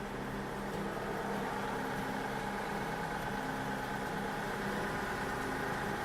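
Case IH 9380 four-wheel-drive tractor's 400 hp diesel engine idling steadily, getting slightly louder about a second in.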